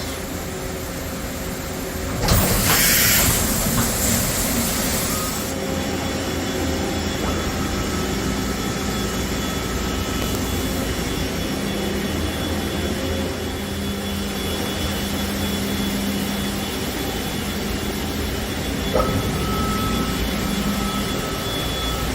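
Hurco VMX24 HSi CNC vertical machining center running under power, giving a steady mechanical hum. A loud hissing burst comes about two seconds in and lasts about three seconds. A thin high whine comes and goes twice.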